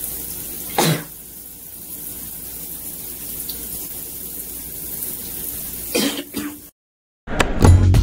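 Shower water running, a steady hiss, with a short sharp noise about a second in and a couple more near six seconds. The sound cuts off and music starts near the end.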